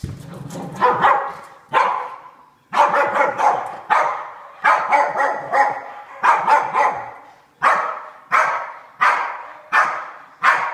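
A dog barking over and over in play, a sharp bark about every half to one second, each bark trailing off with a short echo.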